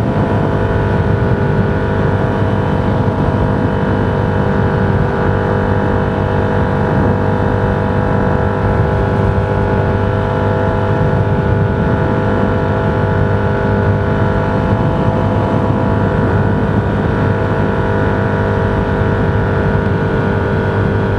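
Vehicle cruising at highway speed: a steady engine drone with constant road and wind noise, holding an even pitch throughout.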